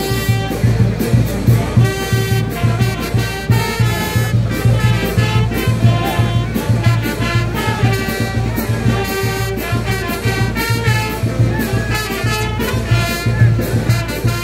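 Latin brass band music with trumpets and a steady, even beat.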